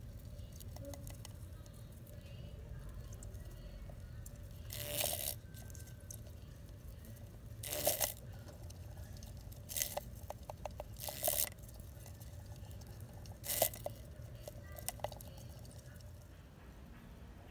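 Thin clear plastic container crackling in short crinkly bursts, about five of them a few seconds apart, over a low steady hum.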